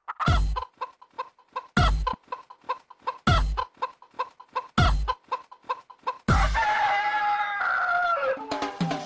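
Chicken clucking in short, quick, evenly spaced calls, set against a heavy beat that lands about every second and a half. About six seconds in, a rooster crows once, a long call that falls in pitch at the end.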